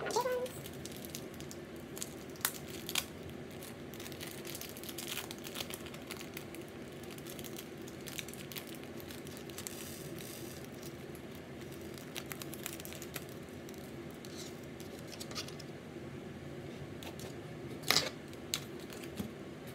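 Small clear plastic bag of rhinestones crinkling as it is handled, with a few sharp clicks of gems and taps on the tabletop, the loudest near the end; a steady low hum runs underneath.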